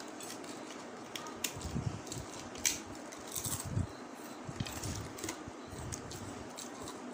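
Crunching and chewing of crispy fried dory fish pieces: irregular crisp crackles, with a sharper crunch about two and a half seconds in.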